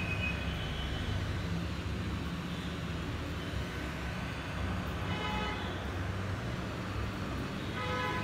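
Low, steady rumble of a moving vehicle, heard from aboard as it rides through the streets. Two brief higher-pitched tones sound over it, about five seconds in and again near the end.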